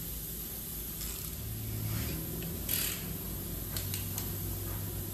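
Quiet tool-handling noises in a workshop: a few light clicks and knocks and a brief rustle, over a low steady hum.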